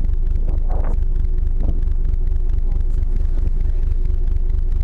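Steady low rumble of an icebreaker ship's engines under way, with a steady hum over it and faint voices briefly about a second in.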